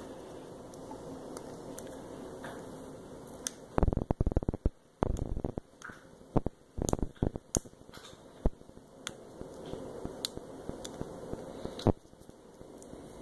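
Paper backing being peeled by hand off a vinyl decal: close rustling and crackling. The loudest stretch is a run of irregular bursts about four seconds in, with scattered sharp clicks after it.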